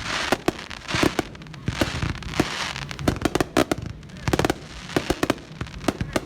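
Winda Amped Up finale set of consumer firework cakes firing together: a rapid, irregular run of loud bangs from shots launching and bursting, several a second, with stretches of hiss between them.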